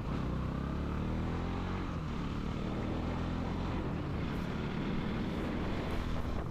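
Bajaj Pulsar NS200 single-cylinder motorcycle engine running under way, its pitch rising and falling with the throttle, over a steady low rumble.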